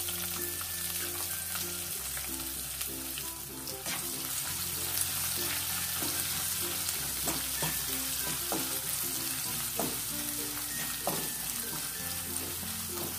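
Chopped onions sizzling in hot oil in a nonstick kadai, stirred with a spatula that gives short scrapes and taps against the pan. Light instrumental background music with held bass notes plays under it.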